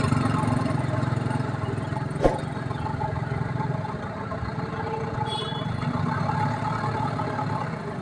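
Engine of a heavy log-handling machine running steadily with a low hum, with a single sharp knock about two seconds in.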